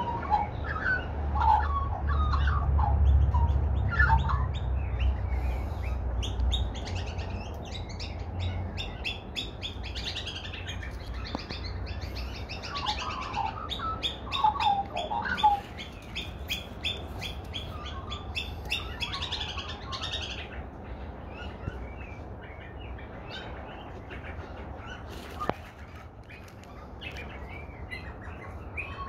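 Australian magpies and other birds calling: short gliding notes, then a fast run of high chattering calls from about 8 to 20 seconds in. A low rumble underlies the first several seconds.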